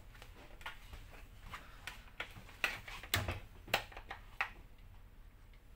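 Light plastic clicks and taps, a scattered handful with the loudest just past the middle, as a Pinlock anti-fog insert and a dark-tinted helmet visor are handled and pressed together.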